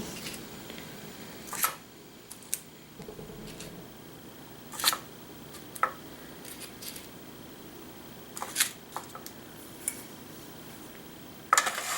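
Scattered light clicks and taps of kitchen utensils handling the cupcake batter, a dozen or so short sharp ones at irregular intervals over faint room hum.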